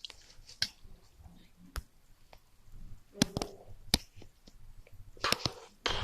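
Single-shot rifle being taken apart by hand: a handful of sharp, irregularly spaced clicks and knocks of its parts, with a louder cluster of rattling handling near the end.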